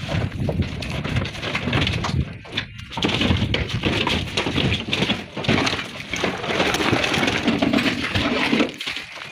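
Tarkwa flat stone slabs clattering and scraping against each other as they are lifted off a pile in a truck bed and set down on a stack, with a short lull about two and a half seconds in.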